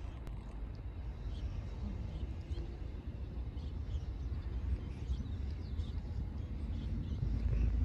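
Electric commuter train approaching from a distance, a low rumble that grows slowly louder, with faint bird chirps.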